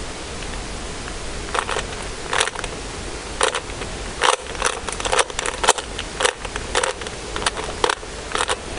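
A Rubik's Cube being turned by hand: its plastic layers click and clack in irregular quick runs of turns as the corner pieces are being solved.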